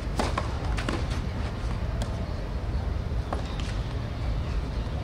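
Tennis racket strings hitting the ball: a serve followed by a short exchange of shots, heard as several sharp pops in the first four seconds over a steady low rumble.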